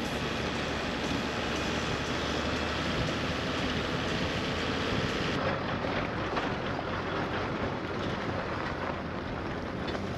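A Toyota Land Cruiser 80 series driving on a rough, rocky dirt road: a steady rumble of engine and tyres, with small knocks and rattles in the second half.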